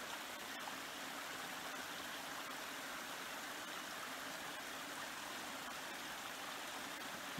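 A small stream of water running steadily down a rocky cascade, an even, unbroken rush.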